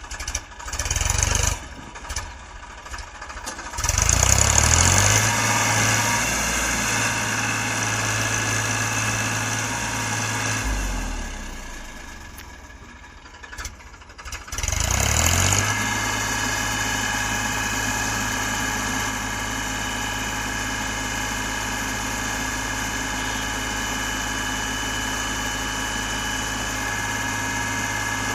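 Diesel engine of a JCB 3DX backhoe loader revving up, running steady at high revs, dropping back to a lower, quieter speed, then revving up again and holding steady.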